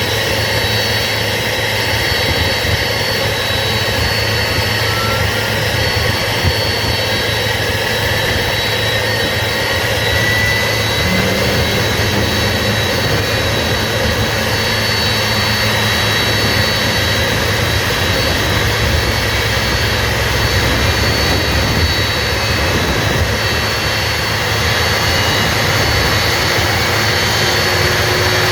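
Boeing 767-300F turbofan engines running during startup: a steady loud jet roar with a high whine, and faint tones slowly rising in pitch as an engine spools up.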